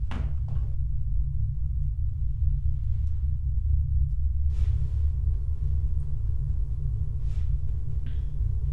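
Deep, steady low rumble of a horror-film underscore drone, with a few faint soft sounds above it.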